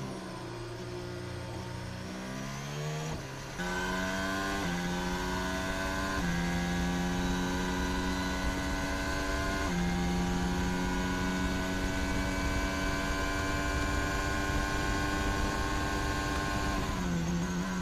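Formula 1 Red Bull RB18's 1.6-litre turbocharged V6 hybrid engine, heard onboard: low revs out of a corner at first, then accelerating through the gears with the pitch stepping at each gear change and climbing slowly along the straight, before dropping through downshifts under braking near the end.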